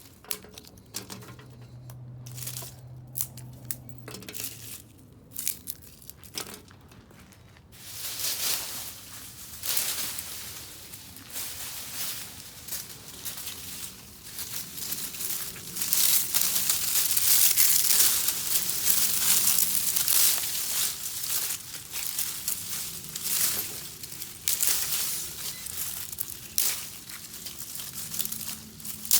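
Branches and twigs breaking: scattered sharp snaps at first, then, about eight seconds in, a dense, continuous crackle of snapping wood that is loudest around the middle and thins toward the end.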